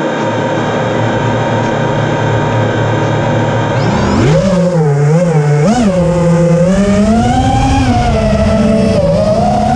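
Quadcopter drone's electric motors and propellers: a steady hum while it sits on the ground, then about four seconds in the pitch climbs sharply as it takes off, and keeps rising and falling with the throttle in flight.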